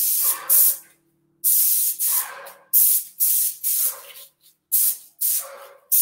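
Airless sprayer spraying varnish onto a wood board in short trigger pulls: about six or seven separate bursts of hiss, each a second or less, with brief silences between them as the edges are sprayed.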